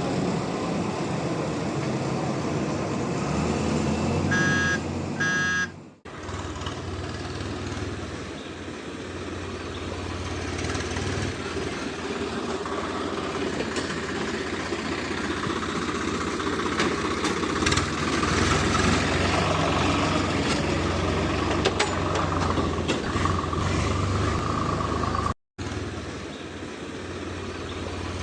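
Steady vehicle engine rumble, with two short horn toots about four and a half seconds in.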